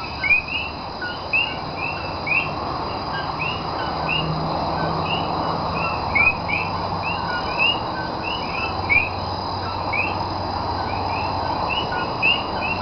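Chorus of common coquí frogs, several calling at once in overlapping two-note "co-kee" calls, the second note sweeping upward. A steady high-pitched hum runs beneath.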